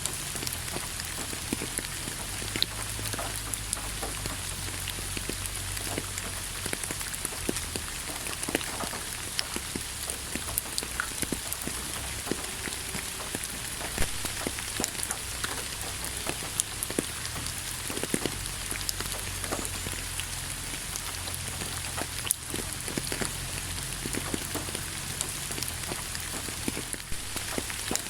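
Steady rain falling, a constant hiss with many separate drops clicking and tapping on a hard surface.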